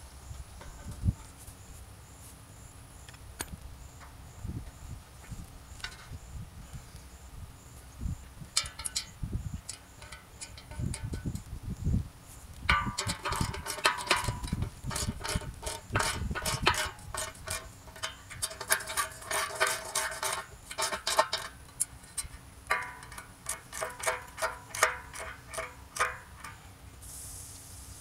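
Ratchet wrench clicking in quick runs while nuts are tightened on the anchor bolts of a steel post's base plate. There are two long runs, the first starting about halfway through and the second near the end.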